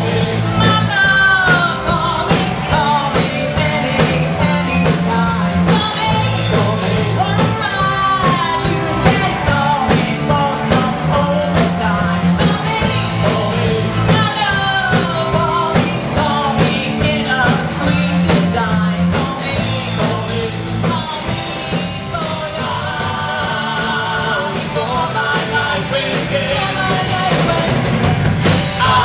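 Live rock band playing a song, a singer over drums, bass, guitars and keyboard with a steady beat.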